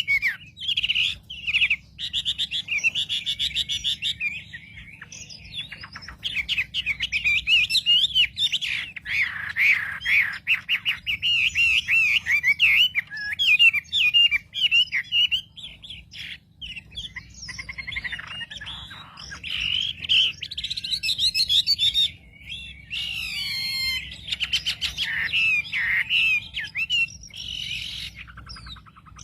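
Wambi bird singing a fast, varied chirping and warbling song in long runs broken by short pauses; this is a lure call meant to provoke other wambi birds. A faint steady low hum runs underneath.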